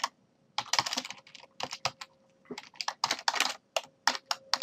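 Typing on a computer keyboard: irregular runs of keystrokes with short pauses between them.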